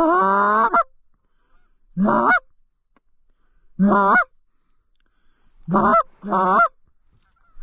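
Canada goose honking: five loud, close honks about two seconds apart, the last two in quick succession. Each breaks from a low note up to a higher one.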